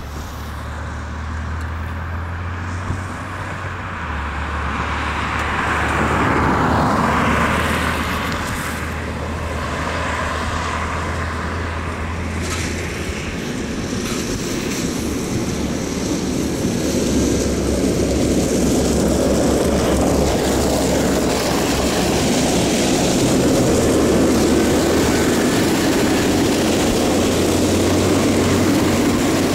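Engine noise: a steady low hum, with a vehicle passing and fading about six to eight seconds in. A louder engine sound then builds gradually through the second half.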